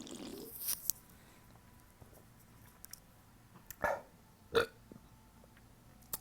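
A man burping: a longer, low burp fading out at the start, then two short burps about four seconds in, under a second apart. He is drinking a malt drink to make himself burp.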